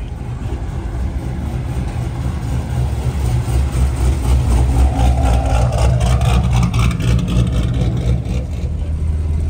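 Fifth-generation Chevrolet Camaro's engine and dual exhaust rumbling as the car pulls away at low speed, growing louder over the first few seconds. A rapid even pulsing runs through the exhaust sound in the middle stretch.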